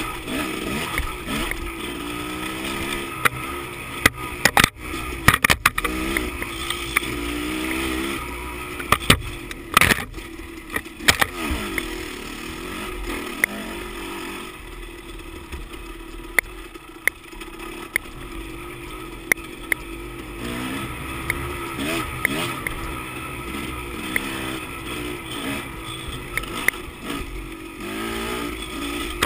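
Dirt bike engine running on a rough singletrack trail, its pitch rising and falling with the throttle. Sharp knocks and clatters come through, thickest from about four to eleven seconds in.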